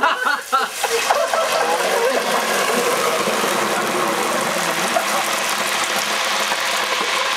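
Coca-Cola spat into the hot oil of an electric deep fryer, the oil then sizzling and bubbling hard with a steady hiss from about a second in: the water in the soda boiling off in the oil.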